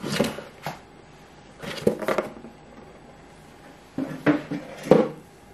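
Small gel polish bottles being handled on a table: scattered knocks and clinks in three short clusters, near the start, around two seconds in, and again near the end.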